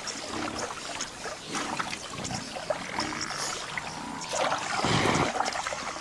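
Cape buffalo wading through wet lagoon mud: irregular squelches and splashes from its hooves, with the longest and loudest one about five seconds in.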